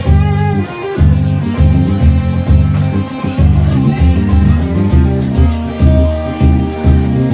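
Live blues band playing an instrumental passage: electric guitar lines over a strong bass groove and a steady drum beat.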